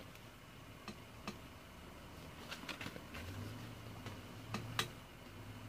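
Faint scattered clicks and light handling noise as a record album is moved and repositioned by hand. A low hum comes in about three seconds in.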